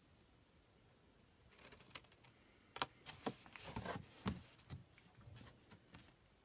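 Small scissors snipping into pink cardstock, with a run of short, crisp cuts and paper rustling as the card is turned. The cutting starts about a second and a half in.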